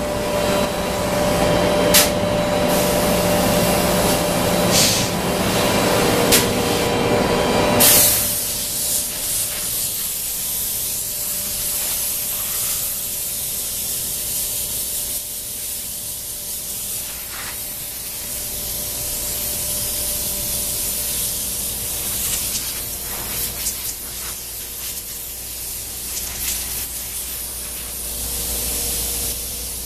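A three-head CNC router running with its dust collection, a steady machine hum with a few sharp clicks. About eight seconds in it gives way to a compressed-air blow gun hissing as it blows chips off the freshly cut styrene panels.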